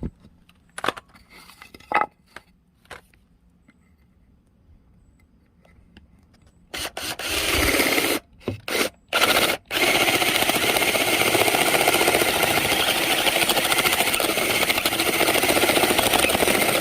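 Electric drill boring a hole through a piece of wood, a steady grinding rasp of the bit cutting. After a few handling knocks it starts and stops three times about halfway in, then runs steadily.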